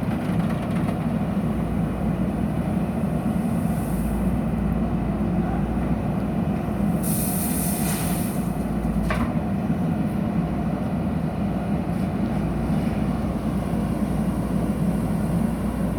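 Diesel engine of a JCB backhoe loader running steadily under work. A short hiss comes about seven seconds in, followed by a single knock a second or so later.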